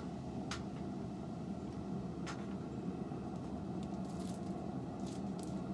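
Forge running with a steady low hum, broken by a few light, sharp clicks.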